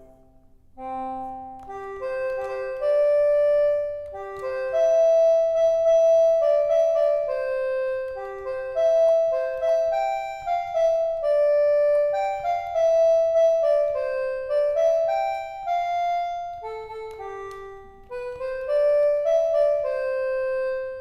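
A keyboard-like preset on the EASYPLAY 1s pocket MIDI keyboard plays a melody of single notes and overlapping held tones. The playing dips briefly near the end, then carries on.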